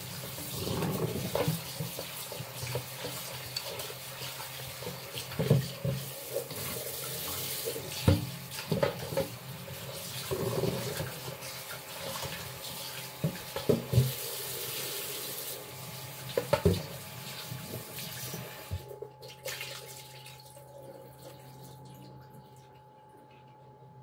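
Kitchen tap running into a stainless steel sink as raw chicken pieces are rinsed in a bowl, with scattered clunks of the bowl and hands against the sink. The water shuts off about 19 seconds in, leaving a faint steady hum.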